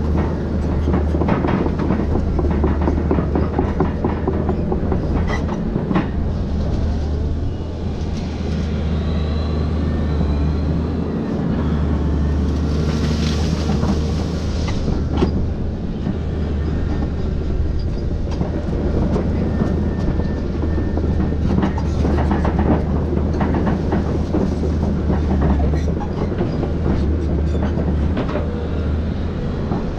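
Volvo excavator's diesel engine running steadily under load, with frequent clanks and knocks as the machine works, racking citrus trees.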